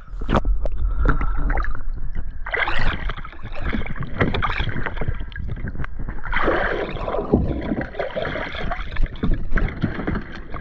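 Water splashing and slapping around a small plastic dive float, with knocks from handling it as a speared snapper is put inside, over a steady low rumble.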